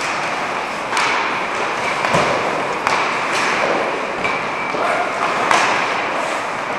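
Ice hockey play: skate blades scraping and hissing on the ice, with several sharp knocks of sticks and pucks, the first about a second in and the loudest about five and a half seconds in.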